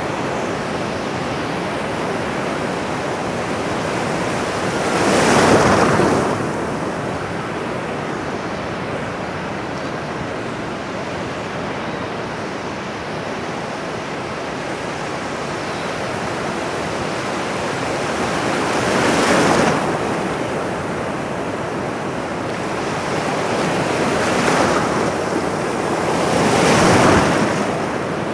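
Ocean surf washing steadily, with louder waves breaking about five seconds in, again about two-thirds of the way through, and twice more near the end, each swelling and falling away over about a second.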